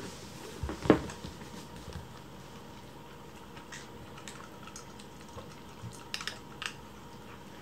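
Kittens eating from food bowls on a wooden floor: scattered small clicks and ticks against the bowls, with one louder knock about a second in.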